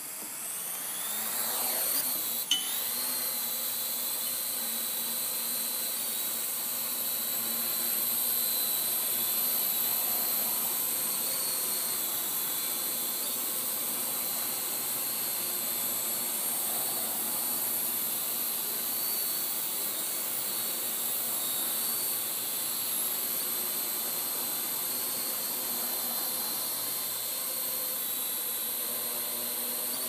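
Parrot AR Drone 2.0 quadcopter's four brushless electric motors and propellers spinning up with a rising whine over the first couple of seconds, then a steady high-pitched whine as the drone hovers and flies. A short click about two and a half seconds in.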